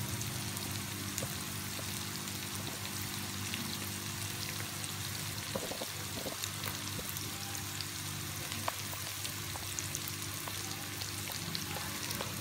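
Chopped chicken and vegetables (capsicum, onion, carrot) frying in oil in an aluminium karahi over a high flame: a steady sizzle with scattered small crackles, over a faint low steady hum.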